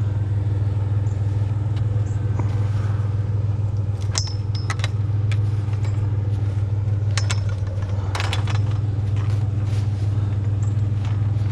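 Pickup truck engine running with a steady low drone, with a few short clicks and rattles about four, five, seven and eight seconds in.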